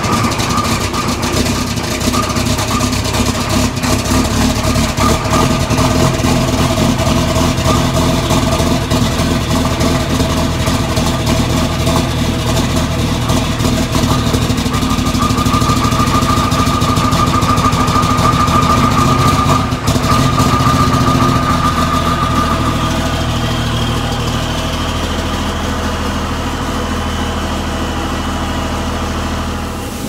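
Volvo VNL semi truck's diesel engine idling loud and steady just after a cold start. A higher whine rises over the idle from about halfway through, and the engine eases a little quieter near the end.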